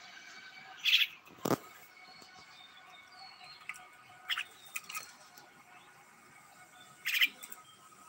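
Caged pet bird giving a few short squawks and chirps while a cat paws at its wire cage. A single sharp click about a second and a half in.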